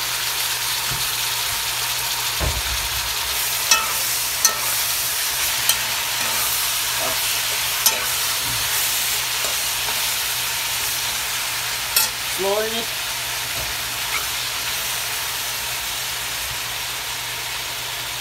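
Sliced potatoes sizzling steadily in hot oil in a heavy black pot. A metal slotted spoon clinks sharply against the pot a few times as the slices are stirred and turned.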